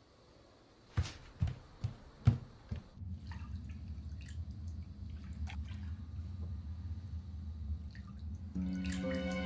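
Water dripping in a bathtub: a run of five sharp drips about a second in, then a low steady drone with faint scattered drips. Film music with sustained tones comes in near the end.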